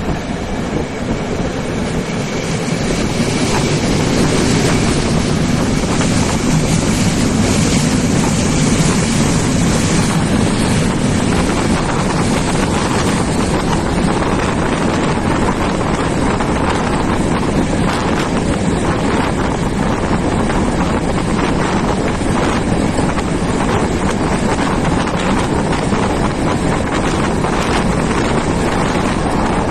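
Running noise of a departing passenger train heard at a carriage window: wheels on rails and rushing air. It builds over the first few seconds as the train gathers speed, then holds steady.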